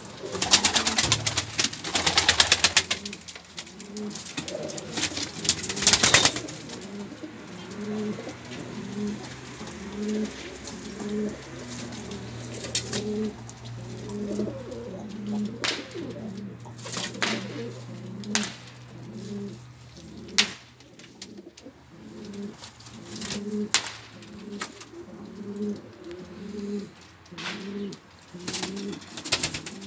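Domestic pigeons cooing in a loft, a steady run of low coos about one a second. A few louder flutters and knocks come in the first few seconds.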